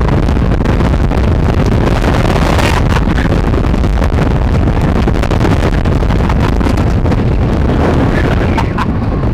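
Roller coaster train running fast along its steel-topped wooden track, a steady loud rumble with heavy wind buffeting the on-ride microphone and a few brief sharp clacks.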